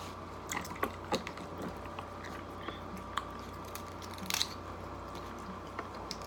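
Scattered cracks and crunches of cooked lobster and shrimp shells being broken, peeled and snipped with kitchen shears, with chewing close to the microphone. A cluster of cracks comes a little past four seconds in, over a faint steady hum.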